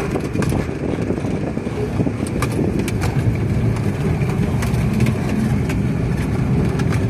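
Inside the cab of a Suzuki DA17V kei van driving on a rough dirt and gravel road: a steady low engine and tyre drone with frequent short knocks and rattles as the van jolts over the uneven surface.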